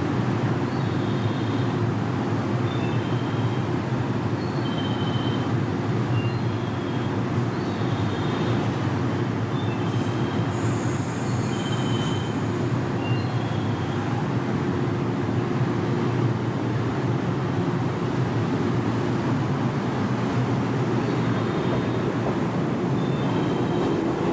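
JR 113 series electric train making steady rail noise, with short high-pitched wheel squeals scattered throughout and a brief hiss about halfway through.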